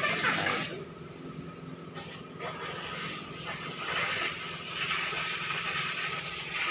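Steady hiss with a faint low hum underneath, with no distinct knocks or strikes.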